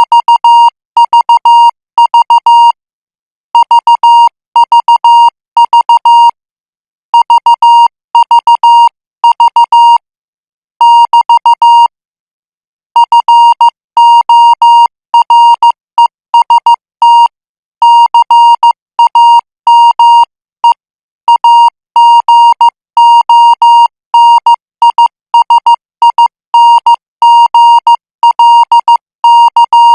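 Morse code practice tone, a single high beep keyed on and off in dots and dashes at 14 words per minute, sent in groups with short pauses between them.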